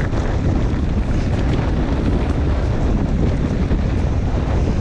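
Strong wind buffeting the action-camera microphone: a loud, steady low rumble of wind noise.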